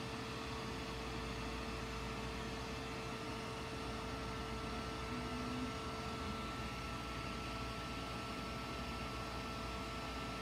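Handheld electric heat gun running steadily, a constant blowing hiss with a faint steady whine from its fan motor, as it plays hot air over wet milk paint.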